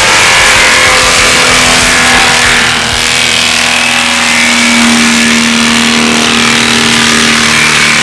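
DENIS CIMAF forestry mulcher on a tracked skid-steer running under load, its drum grinding brush and throwing chips, over the steady drone of the machine's engine. A low steady whine strengthens about halfway through.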